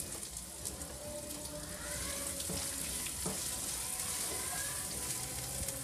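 Chopped onions sizzling in hot oil in a kadai, stirred with a silicone spatula: a steady frying hiss.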